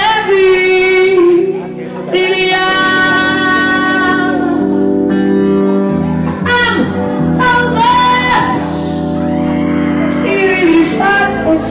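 A song: a voice singing long held notes over instrumental accompaniment.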